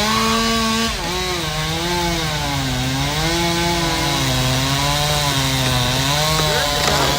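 Chainsaw engine running under cutting load, its pitch sagging and recovering in slow swells, with a clear drop about a second in.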